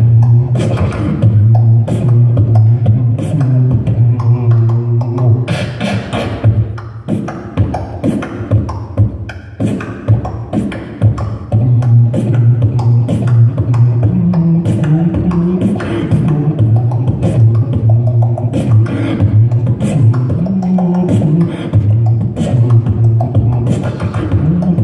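Solo beatboxing through a handheld microphone and PA: a low hummed bass line under fast mouth-percussion clicks and hits. The bass drops out and the beat thins for a few seconds near the middle, then comes back in full.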